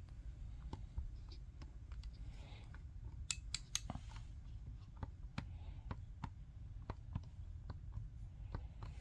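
Emerson 1F85U22PR programmable thermostat clicking: a run of small irregular clicks, with three sharper ones close together about three and a half seconds in.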